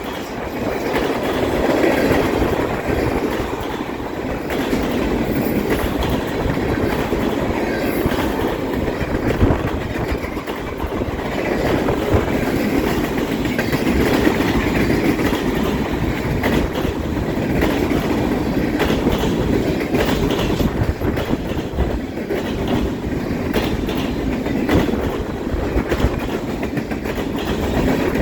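Freight train cars rolling past: a steady rumble of steel wheels on rail with frequent sharp clicks and clacks.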